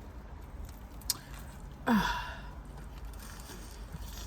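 A person's short sigh about two seconds in: a voiced exhale that falls in pitch and trails off breathily. A faint click comes about a second in.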